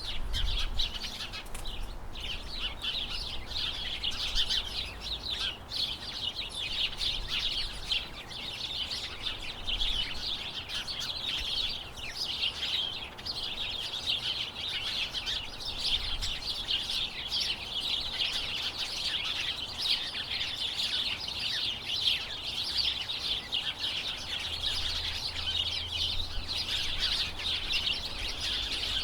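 Large flock of small birds chirping together: a dense, continuous chorus of overlapping high-pitched chirps and tweets.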